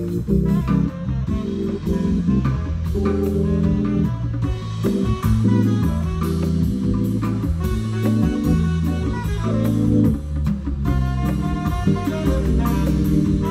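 Live band playing an instrumental jazz tune, with keyboards, moving bass notes and a drum kit.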